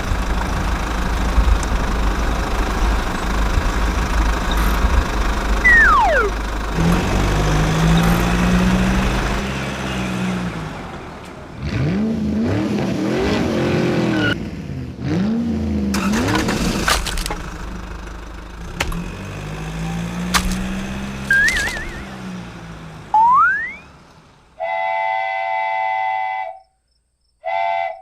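Toy-vehicle sound effects: engine-like rumbling with rising and falling pitch and a few sharp knocks, then two blasts of a train whistle near the end.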